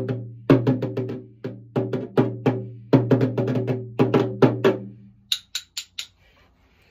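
Small toy rope-tension marching drum struck with wooden sticks in a loose, uneven rhythm, each hit ringing briefly. Near the end the drumming stops and the sticks click together a few times in quick succession.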